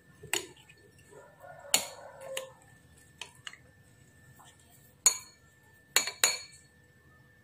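A spoon clinking against the inside of a glass as a drink is stirred: about five sharp, ringing clinks spread out over several seconds, with fainter taps between them.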